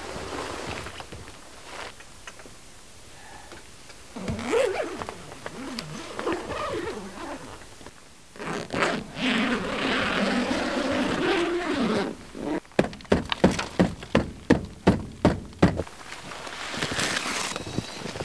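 Footsteps crunching through deep snow, a quick run of about three steps a second in the middle, with thunks and scraping of gear being handled.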